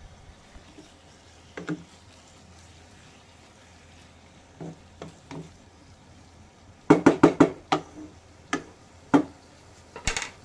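Wooden spatula knocking and scraping against a metal pot while stirring beef, in scattered strokes with a quick run of about five knocks some seven seconds in and a last pair near the end.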